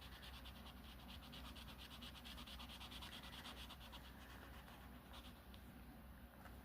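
Faint, rapid back-and-forth scratching of colouring strokes on a colouring-book page, at about eight strokes a second. It stops about four seconds in, leaving a few scattered strokes.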